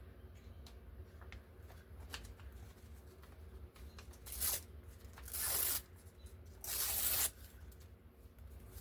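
Paper being torn in three short rips, the second and third the longest and loudest, with light rustling and handling of paper before them.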